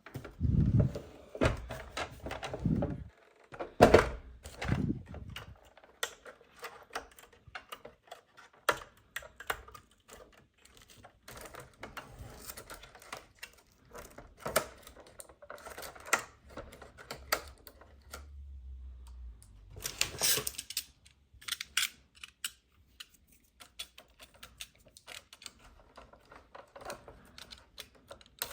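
Hard plastic toy pieces and packaging being handled: an irregular run of clicks, taps and knocks, with a few heavier thumps in the first few seconds.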